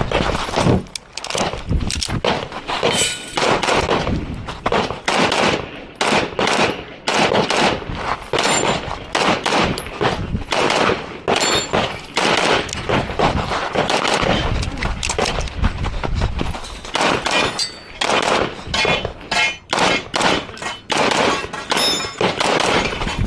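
Pistol fired in rapid strings of shots with short pauses between them, the course of fire of a practical-pistol stage from the start signal to the last shot.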